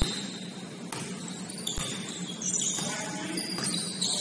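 Basketball sneakers squeaking on a gym floor in a string of high squeals, with a single thud of a bounced ball or footfall right at the start.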